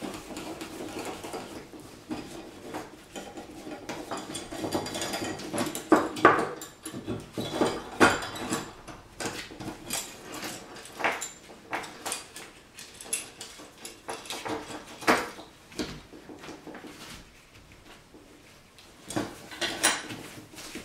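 A cloth rubbing wax over a steel Victor double spring leghold trap as it is handled, with the trap's steel jaws, springs and chain clinking now and then in several sharp knocks.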